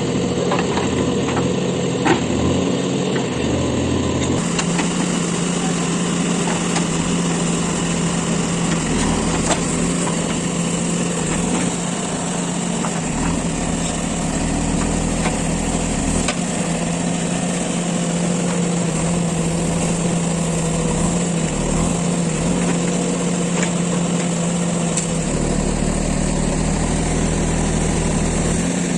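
JCB 3DX backhoe loader's diesel engine running steadily, its sound changing abruptly about four seconds in.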